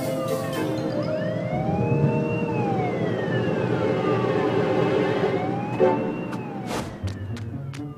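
Cartoon police car siren wailing in slow rising-and-falling sweeps of two to three seconds each, fading out near the end.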